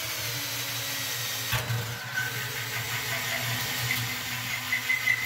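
Drill driving a 32 mm tungsten carbide hole saw through the metal wall of a brew pot, pushed hard at moderate speed. The motor runs steadily; the teeth bite in about a second and a half in, with a high squeal near the end as the saw cuts through.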